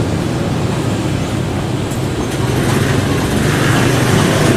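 Embraer Legacy 600 business jet on landing approach: a steady rumble of its twin turbofan engines that grows slightly louder, with more hiss in the second half.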